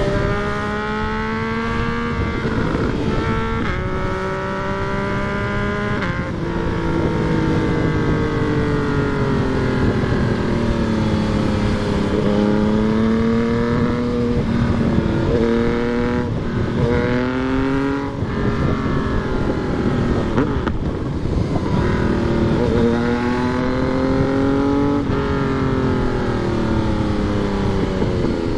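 Yamaha MT-09's inline three-cylinder engine under way, the pitch climbing and then dropping sharply at several gear changes, with stretches of slow easing off between.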